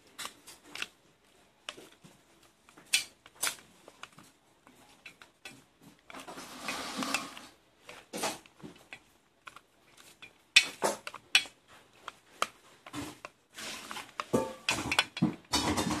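Wooden chopsticks clicking and scraping against a metal pan while tossing raw, marinated meat pieces: irregular clicks, with a longer stretch of stirring about six to seven and a half seconds in.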